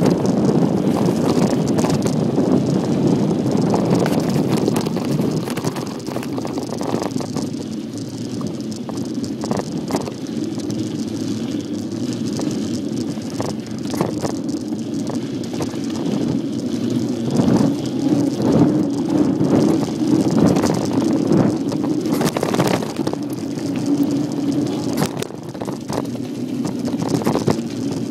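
Bicycle ridden over rough ground: a steady tyre rumble with frequent clatters and knocks over bumps, and wind on the microphone.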